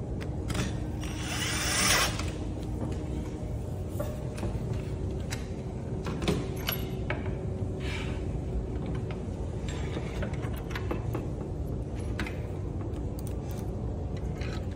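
Cordless drill driving screws into a metal tube chair frame in a few short bursts, the longest and loudest a second or two in, with scattered clicks and light knocks of the metal frame being handled between them.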